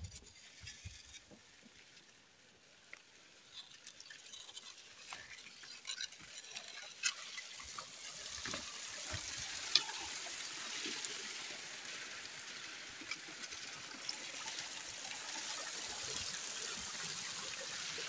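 Dry grass and a carried bundle of cut brush rustling and crackling against a person walking through a tall-grass field, with scattered footstep crunches on stony ground. The rustling hiss builds over the first few seconds and is louder and steady from about eight seconds in.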